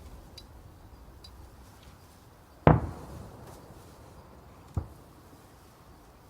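Fireworks going off: one loud bang about two and a half seconds in with a rumbling tail, a smaller sharp bang a couple of seconds later, and a few faint crackles before them.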